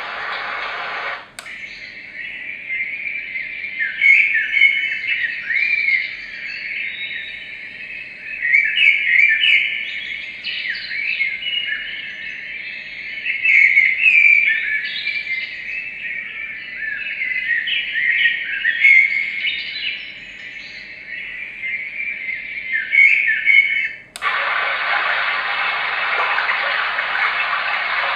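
Three Sheep S1 white-noise machine playing its recorded birdsong track from its small speaker: many short chirps and trills coming in uneven phrases. About a second in, a click switches it from a steady noise track to the birdsong. Near the end, another click switches it back to a steady rushing noise.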